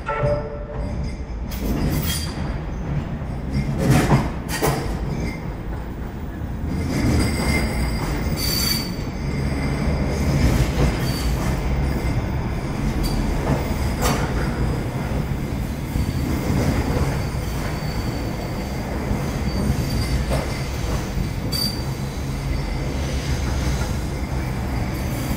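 Manchester Metrolink M5000 trams passing close by over pointwork. There is a steady low rumble of wheels on rail, with sharp clicks and clunks as the wheels cross the rail joints and crossings, and a brief high wheel squeal about a third of the way in and again near the end.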